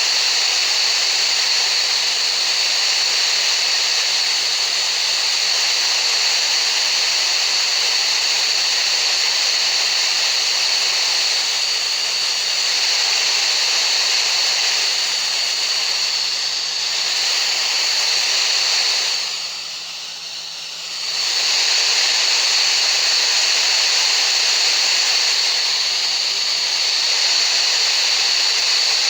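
Tinnitus-masking sound: a steady hiss of noise with a constant high-pitched tone running through it. The sound eases for a second or two about twenty seconds in, then comes back at full strength.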